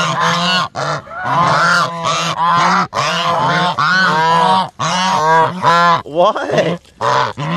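A flock of domestic geese honking loudly, with many calls overlapping in a near-continuous din.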